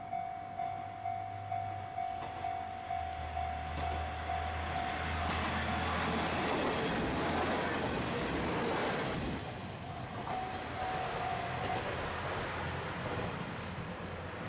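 Level crossing warning bell ringing in a steady repeating ding, a little under two strikes a second, as a Dosan Line diesel train approaches. The train's engine hum and its wheels on the rails build to a loud rush that peaks a little past the middle and covers the bell, which is heard faintly again afterwards.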